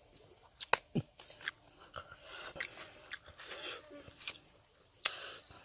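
A fruit's skin being peeled by hand, with chewing: scattered sharp clicks and snaps and a stretch of crackly rustling in the middle.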